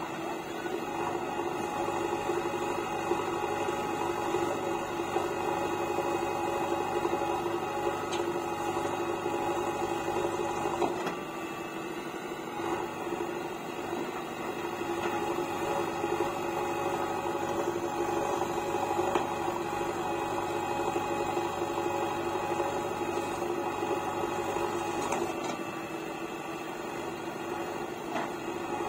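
JCB backhoe loader's diesel engine running steadily under hydraulic work, a constant droning note that eases off twice for a couple of seconds, about a third of the way in and again near the end.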